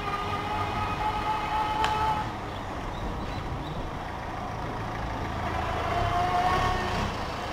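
Electric bike's motor whining steadily while riding, over a low rumble of wind and road noise. The whine fades about two seconds in and comes back, slightly lower, near the end.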